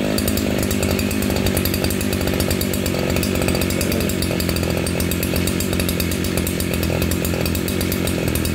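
Shindaiwa S35 brushcutter's 35cc two-stroke engine, 36 mm bore, running at a steady speed just after being pull-started.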